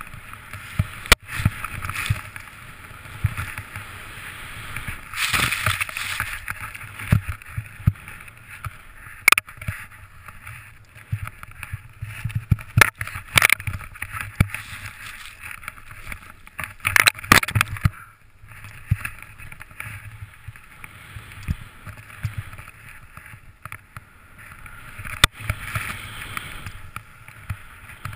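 Snowboard riding through deep powder snow: a hissing swoosh that swells and fades with each turn, over a low rumble, with several sharp knocks along the way.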